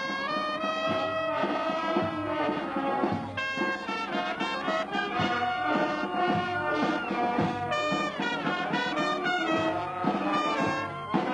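Brass band music playing a melody.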